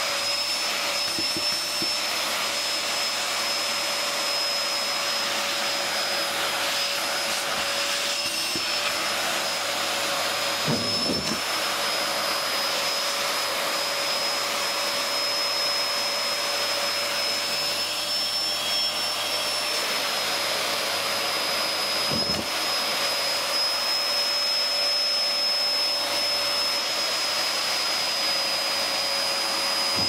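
Hoover Telios Amigo 1800 W bagless canister vacuum cleaner running steadily, with a high motor whine over the rush of air, its hose end sucking at a socked foot. A few short thumps come about a third and two thirds of the way through, where the whine wavers slightly.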